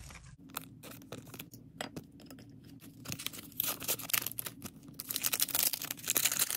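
Soft clicks of trading cards being handled, then the crinkling and tearing of a Disney Lorcana booster pack's foil wrapper. The crackle grows denser and louder about halfway through.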